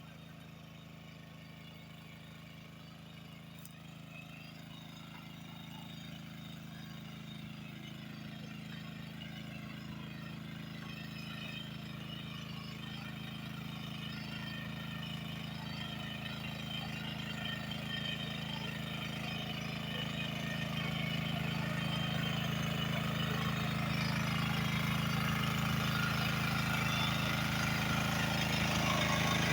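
An engine running steadily with an even hum, growing gradually louder throughout as it comes closer.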